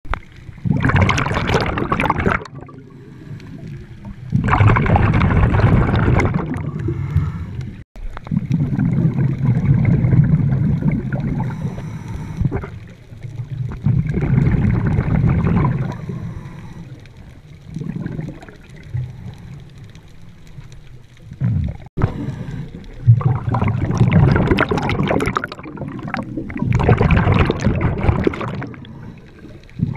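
Underwater breathing through a diver's SNUBA regulator: exhaled air bubbling and gurgling in repeated bursts one to a few seconds long, with quieter gaps between breaths.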